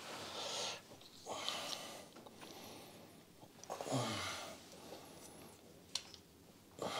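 Soft rustling and handling noise while wiring is pulled through a braided sleeve, with a short sigh or grunt about four seconds in and a single sharp click about six seconds in.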